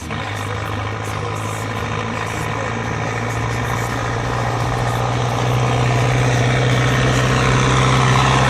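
Engine of a harvest machine running steadily with a constant low drone, growing louder about five seconds in as it comes closer or works harder.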